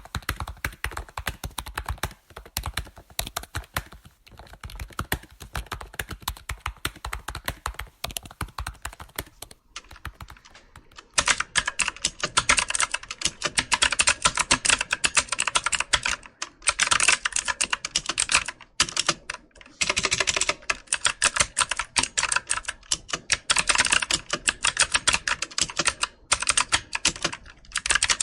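Computer keyboard typing: a fast, continuous run of key clicks and taps. About eleven seconds in the typing gets louder and brighter, with a few brief pauses between bursts.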